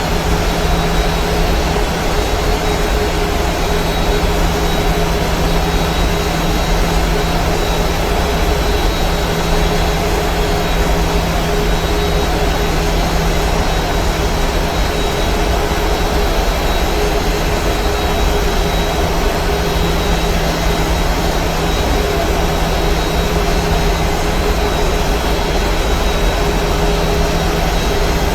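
Steady cabin noise of a Boeing 737-900 on descent: the even drone of its CFM56-7B turbofan engines and rushing airflow, with a few constant hum tones and no sudden changes.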